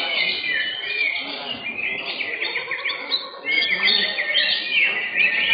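Several caged cucak hijau (green leafbirds) singing at once, dense overlapping runs of quick high chirps and trills, with a brief lull a little after three seconds.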